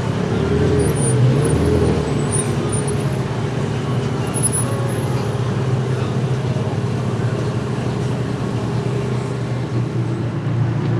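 A car engine running steadily at low revs, a little louder with a slight waver in pitch in the first two seconds, against street traffic noise.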